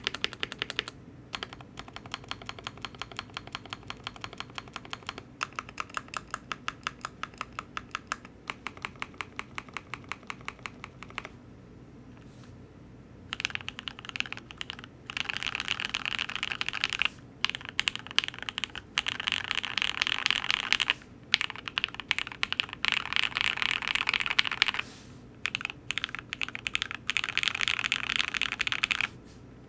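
Typing on a Cannon Keys Devastating TKL mechanical keyboard with lubed and filmed Lavender switches, an FR4 plate and GMK keycaps. A steady run of distinct keystrokes stops about eleven seconds in. After a short pause it gives way to faster, louder bursts of typing separated by brief breaks.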